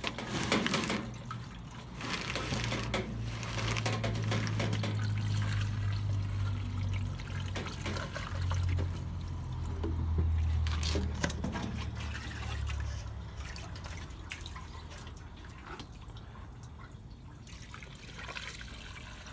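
Used chicken-frying oil pouring in a steady stream from a plastic jug into a plastic funnel, with a low hum under the pour that drops in pitch about eight seconds in. The flow grows quieter after about fourteen seconds.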